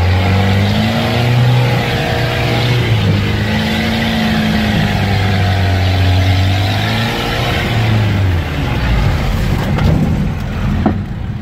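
Off-road vehicle's engine heard from inside the cabin, revving up and down under load as it pushes through a muddy, water-filled ditch in rear-wheel drive. The revs drop away after about eight seconds, and a few sharp knocks follow near the end as the vehicle jolts over the rough ground.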